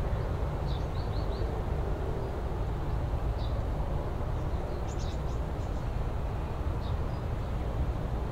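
Birds chirping now and then, a quick run of four about a second in and a cluster of high chirps around the middle, over a steady low outdoor rumble.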